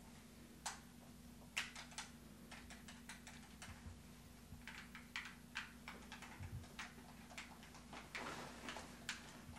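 Faint, irregular clicking of buttons being pressed on a handheld video game controller, several clicks a second, with a low steady hum underneath.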